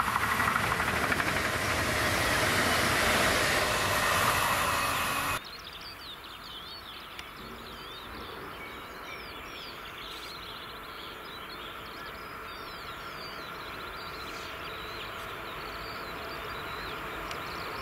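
DB Class 440 electric multiple unit running past close by, loud with a steady hum, cut off abruptly about five seconds in. Then birdsong over the low rumble of an approaching Vectron electric locomotive hauling a container train, slowly growing louder.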